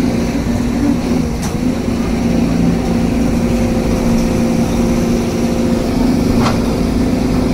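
Excavator diesel engine running steadily with a constant hum. Two brief falling squeals cut through it, about a second and a half in and again near the end.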